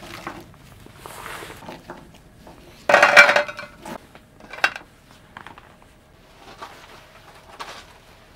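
Dishes, cookware and cutlery clinking and clattering as they are handled, with a louder clatter about three seconds in and a sharp knock a little later.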